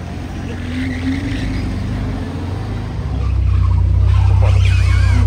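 A car engine running close by, a deep low rumble that grows louder about three seconds in.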